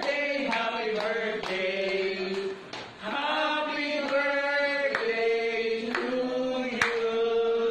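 A group of people singing together, the voices holding long notes, with a few sharp clicks among them.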